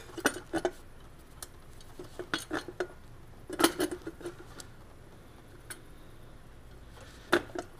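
Scattered light metallic clinks and knocks as a MINI Cooper S cylinder head is worked up and off the engine block, metal parts touching as it is shifted. They come a few at a time, with the louder ones about three and a half seconds in and near the end.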